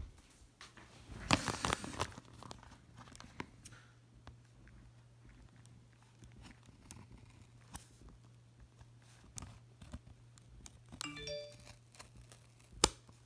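Packaging being handled and torn open: scattered rustles, crinkles, rips and small clicks, loudest about a second and a half in, with a sharp click near the end. A short pitched ding sounds about eleven seconds in.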